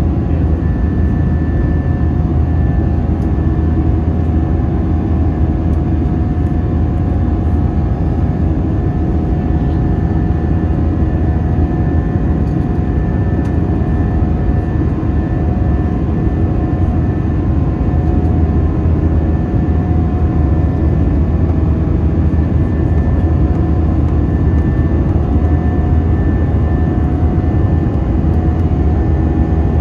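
Airbus A320 cabin noise in flight after take-off: steady engine drone and airflow, with a strong low hum and a few steady tones that do not change.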